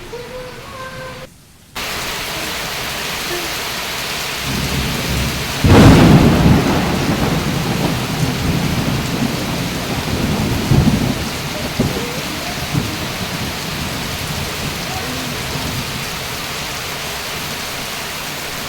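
Steady heavy rain, starting abruptly after a brief silence, with a loud roll of thunder about six seconds in and weaker rumbles a few seconds later.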